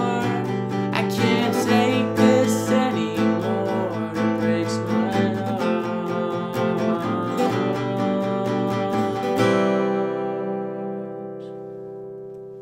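Yamaha acoustic guitar strummed, with wordless singing over it. About nine and a half seconds in, a final chord is left to ring out and slowly fade.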